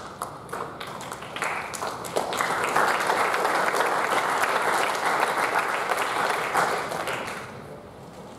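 Audience applauding: a few scattered claps at first, swelling into full applause about two seconds in, then dying away near the end.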